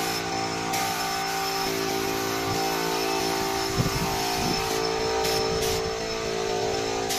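Air spray gun hissing as it sprays tinted varnish. The hiss runs from about a second in to about five seconds in, then comes in two short bursts, all over a steady machine hum.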